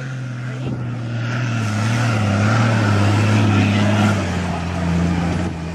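Off-road SUV's engine working hard under load as it drives through deep loose sand, its note sagging and shifting about four seconds in, with tyres churning and spraying sand.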